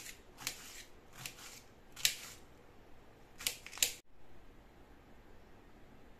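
Knife slicing pineapple into small chunks on a steel plate: about six sharp cutting strokes, irregularly spaced, in the first four seconds, then only faint room hiss.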